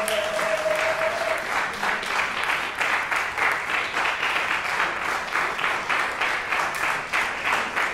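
Audience applauding steadily: many hands clapping in a dense, even stream.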